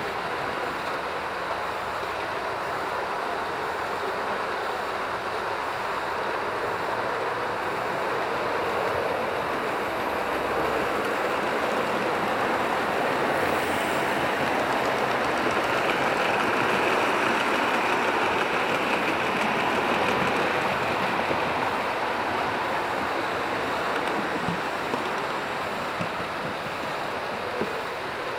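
Model trains running past on the layout track: a steady rushing rumble of wheels on rails that builds as the wagons and coaches pass close by, peaks around the middle, then eases off, with a couple of small clicks near the end.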